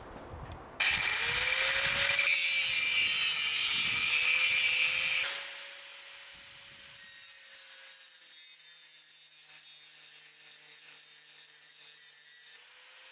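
An electric power tool starts about a second in and cuts through a steel scaffolding clamp with a loud, harsh cutting noise over a steady motor whine. At about five seconds it comes off the metal and runs on much more quietly, still whining.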